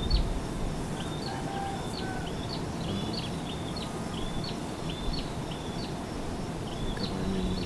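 A small animal chirping in the open: short high chirps repeating about twice a second, over a steady low rumble of wind or surf.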